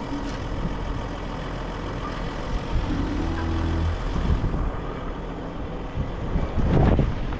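Mercedes-Benz Sprinter 4x4 van driving slowly on a dirt track, heard from outside the cab: steady engine hum under a constant rush of tyre and road noise, with a few thumps near the end.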